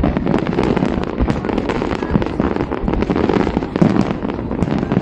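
Aerial fireworks display going off in a dense, continuous barrage of bangs and crackles.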